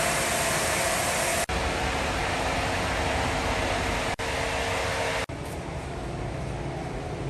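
Woodworking plant machinery running steadily: a noisy whir with a few steady motor hums. It drops out abruptly three times, and after the last break it is quieter with less hiss.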